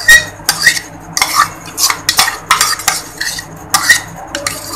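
A kitchen utensil scraping and clinking against a nonstick frying pan in a series of short, irregular strokes, as chopped vegetable topping is worked over a potato pizza base cooking in the pan.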